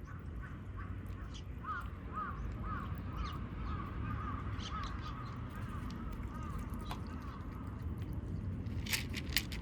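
A quick series of short, arched animal calls, then a few sharp clicks near the end.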